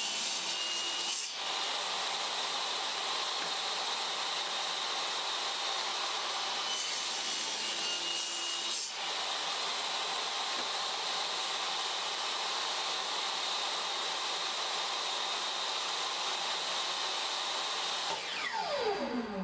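Table saw running and cutting a wooden board with a steady high whine. Near the end the saw winds down, its pitch falling away.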